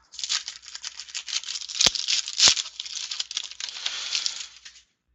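Crinkling and rustling of a trading card pack and its cards being handled, a dense rapid crackle with two sharper snaps about two and two and a half seconds in.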